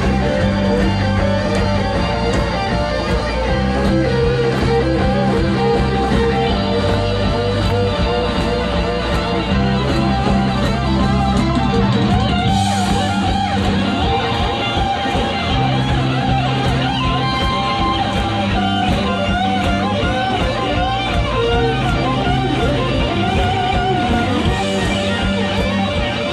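Rock band playing live: an electric lead guitar bends and shakes sustained notes over strummed guitar, bass and a steady drum beat.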